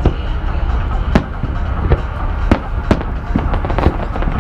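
Fireworks going off: sharp bangs of exploding shells about every half second to a second, over a continuous low rumble of further bursts.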